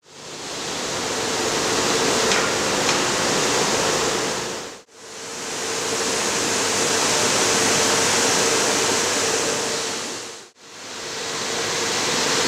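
Steady machine noise from tile-processing machinery, with a constant hum running under a broad rushing noise. It fades out and back in twice, near 5 and 10.5 seconds.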